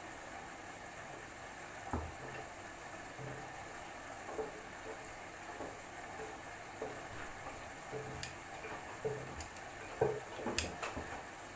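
LG F4R3VYW3WE direct-drive front-loading washing machine tumbling laundry in water on its cold Sportswear wash: soft sloshes and short low motor hums as the drum turns in spells, with a few sharp clicks in the last few seconds.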